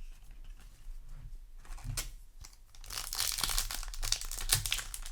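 Foil booster-pack wrapper crinkling as it is torn open and handled, with dense crackling rustle building up in the second half.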